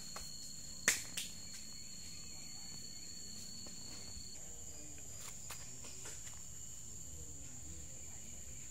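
Steady high-pitched trilling of crickets or similar insects, in two tones; the lower one stops about four seconds in. A few sharp clicks, the loudest about a second in.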